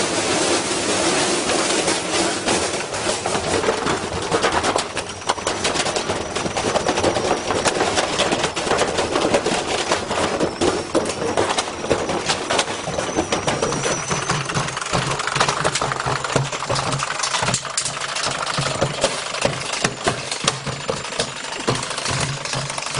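Washing machine running a spin with a heavy, unbalanced load inside, banging and rattling hard and fast as it shakes itself apart. A steady low motor hum comes in about two-thirds of the way through.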